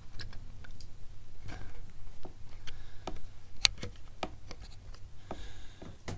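Scattered small clicks and taps as hands handle mountain-bike parts at the fork and brake hose, with the sharpest click about three and a half seconds in.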